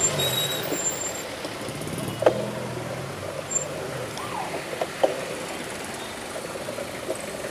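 Road traffic: vehicle engines running close by, with a couple of sharp clicks about two and five seconds in.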